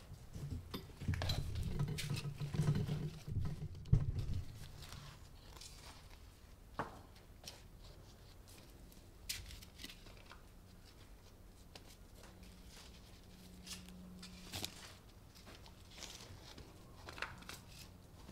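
Gloved hands scooping and pressing potting soil into small plastic plant pots: soil rustling and light knocks of the pots, busiest in the first few seconds, then scattered clicks.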